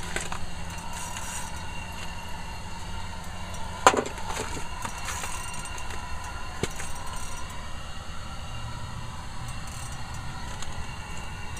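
Steady low hum with a sharp click about four seconds in and a lighter click near seven seconds.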